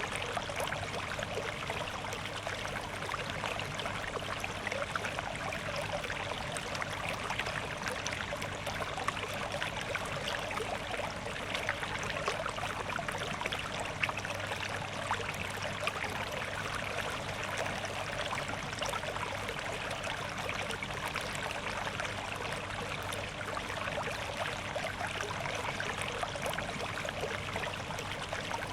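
Water flowing and trickling steadily, a continuous stream-like wash with no music.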